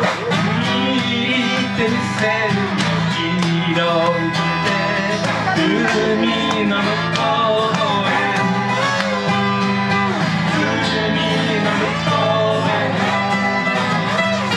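Acoustic guitar duo: one acoustic guitar strummed while a second guitar, played flat on the lap, plays a lead line with gliding, bending notes in a country/bluegrass style.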